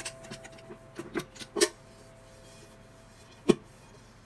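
Light knocks and clicks from a stainless-steel whistling kettle being handled and tipped over on a cloth, with one sharp knock about three and a half seconds in.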